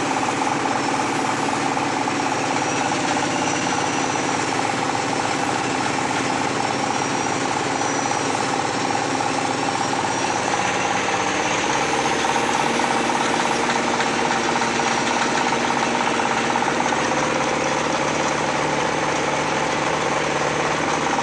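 Small pellet mill running steadily while pressing rice husk into pellets: a loud, dense machine noise with a steady hum and a faint high whine.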